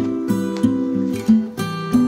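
Background music: a melody of plucked notes, each starting sharply, over a steady pulse.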